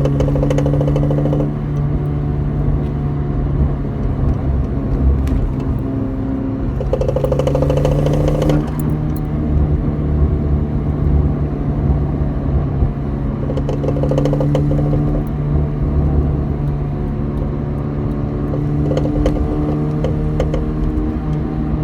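Audi A4 B7 engine idling steadily, with a buzzing rattle that swells and fades about every six seconds: the sign of a bad transmission mount.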